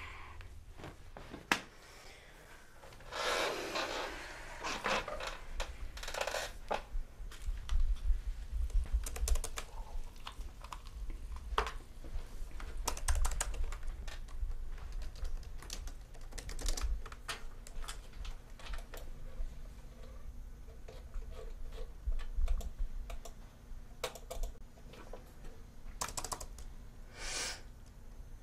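Typing on a laptop keyboard: irregular runs of key clicks, broken by a couple of short rustling swishes, over a low steady room hum.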